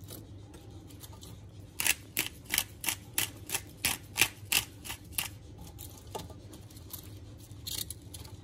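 Whole black peppercorns shaken from a glass jar: a quick run of sharp clicks, about three a second, starting about two seconds in and stopping after about three seconds.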